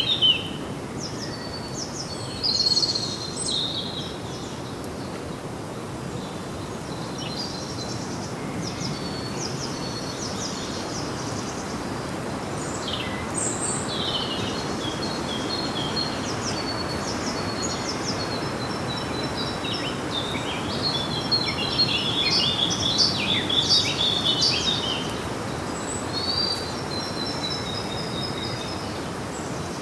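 Birds chirping and trilling in quick short phrases, busiest about two-thirds of the way through, over a steady background hiss.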